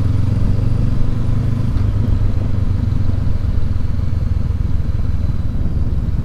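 Honda CB500X's parallel-twin engine running at low road speed, heard from the rider's helmet. The engine note is steady at first and grows less even about two seconds in.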